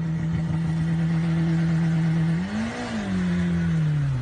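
Car engine running at a steady speed, heard from inside the cabin with road noise. About two and a half seconds in, the engine note rises briefly and then settles at a lower pitch.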